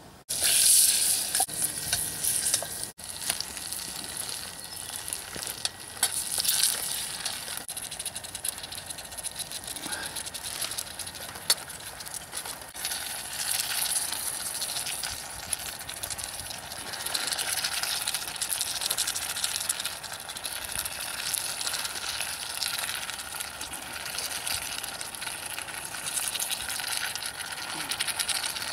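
Pieces of pork browning in hot oil and butter in a cocotte, sizzling steadily with scattered crackles; the sizzle starts abruptly.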